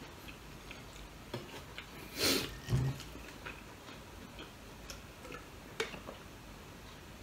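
Quiet eating-and-drinking sounds from a man at the table: scattered small clicks and taps, a short breathy noise about two seconds in followed by a low thud, then faint clicks as he drinks from a large glass mug.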